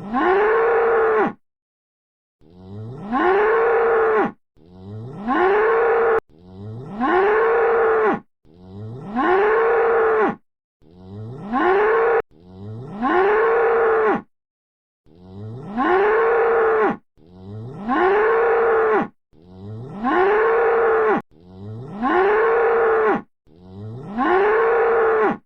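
A bull mooing over and over, about a dozen calls of roughly two seconds each, with short silent gaps between them. Each moo starts low, rises in pitch and then holds. The calls are nearly identical, like one recorded moo repeated.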